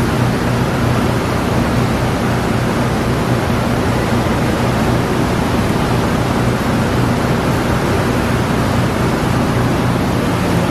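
Loud, steady rushing noise over a low droning hum, from machinery running continuously.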